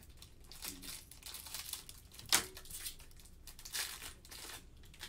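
Plastic trading-card pack wrapper crinkling and tearing as a pack of Panini Select basketball cards is opened and the cards are pulled out, in short rustles with one sharp snap a little over two seconds in.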